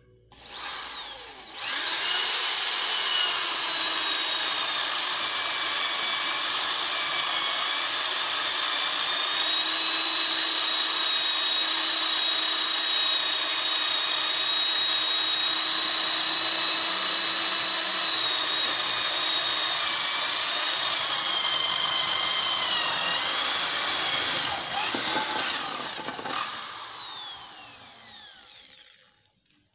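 Doliz BA670 550 W impact drill boring a 25 mm spade bit into hardwood: a steady high motor whine for over twenty seconds, its pitch sagging briefly under load about twenty-three seconds in, then fading away and stopping near the end.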